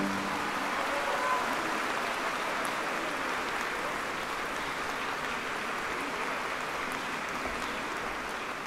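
Audience applauding steadily at the end of an operetta duet. The final sung and piano chord dies away right at the start.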